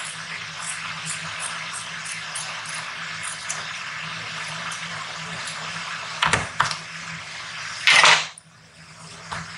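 Scissors snipping through folded fabric, a run of faint crisp snips, then two sharp clicks about six seconds in and a louder short clatter about eight seconds in as the scissors are put down on the table.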